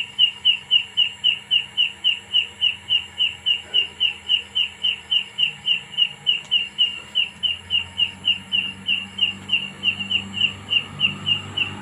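An unseen night-calling animal giving a long, even series of short, high chirps, about four a second, that the searcher cannot trace to its source in the tree.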